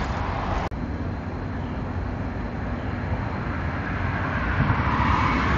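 Steady road-traffic noise: a continuous low rumble and hiss of passing cars, swelling louder near the end as a vehicle goes by.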